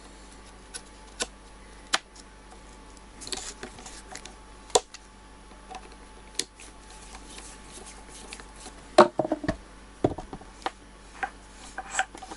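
Scattered sharp clicks and knocks of a Bosch alternator being reassembled by hand: the plastic rear cover and metal housing knocking against each other and a screwdriver working the cover screws. A cluster of louder knocks comes about nine seconds in, and a run of quick clicks near the end.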